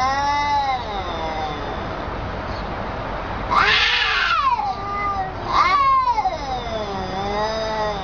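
Cats yowling in a nose-to-nose standoff, an aggressive caterwaul. The calls are long and drawn out, wavering up and down in pitch one after another, and the loudest starts harshly about three and a half seconds in.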